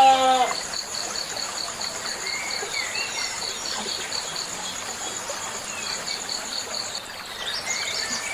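A goat's bleat ends about half a second in; then a high insect trill, like a cricket, goes on in steady even pulses, with short bird chirps scattered over it. The pulsed trill stops about a second before the end.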